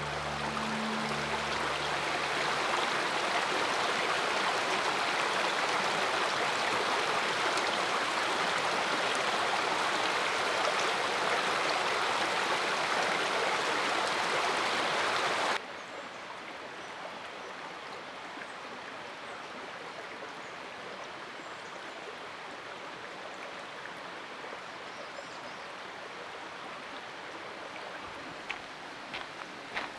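Shallow creek running over mossy rocks, a steady rush of water. About halfway through it cuts off abruptly to a much quieter, even woodland hiss.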